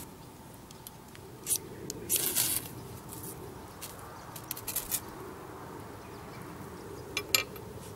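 Fire steel (ferro rod) scraped with a metal striker, throwing sparks onto a dry teasel head used as tinder: a short scrape about a second and a half in, then a longer rasping scrape just after. A few shorter scratches follow later.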